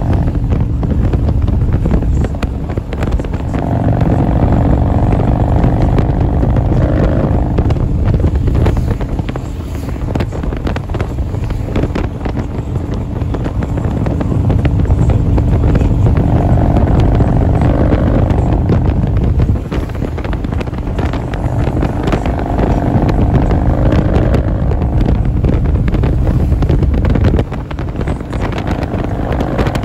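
Motorcycle engine running at road speed on a wet road, with heavy wind buffeting on the microphone. The level drops suddenly a few times, most clearly about two-thirds of the way in and near the end.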